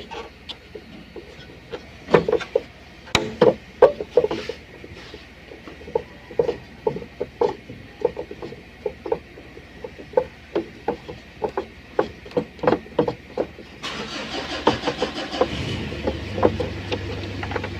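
Irregular small clicks and knocks of a hand tool working on a screw in the metal chassis of a window air conditioner, as the fan-motor screw is loosened. About 14 seconds in a steady background noise with a low hum comes in.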